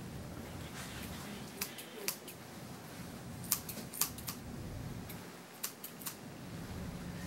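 Grooming shears snipping a Scottish terrier's brow hair: several crisp single cuts, spaced unevenly, in small groups of two or three.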